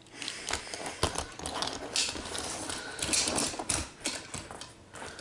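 Small toy cars being handled and set out off camera: an irregular run of light clicks, knocks and clatters.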